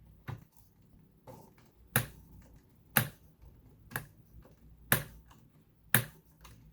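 Pattern selector dial of a vintage Electra SX4000 sewing machine being turned clockwise, clicking into each stitch position in turn: sharp single clicks about once a second.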